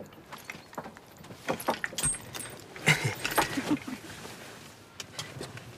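A flurry of small clicks, clinks and knocks from hard objects being handled, thickest in the middle, with a few more near the end.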